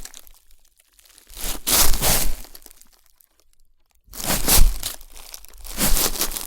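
Footsteps in walking boots crunching through dry autumn leaves: three slow steps about two seconds apart, each a crackly crunch lasting under a second.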